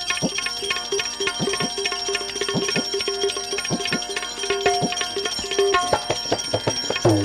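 Instrumental interlude of a santvani bhajan: tabla strokes in a quick steady rhythm under a plucked-string melody, with steady high ringing. Right at the end a deep tabla stroke bends down in pitch.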